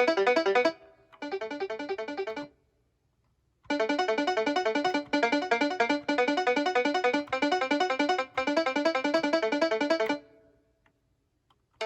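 Akai MPK Mini Play MK3 keyboard playing a rapid run of bright synth notes in phrases, with two short silent gaps between them.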